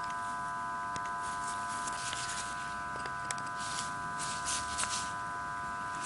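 A steady electrical hum made of several high tones, with faint clicks and light scrapes as small carburetor parts are fitted together by hand.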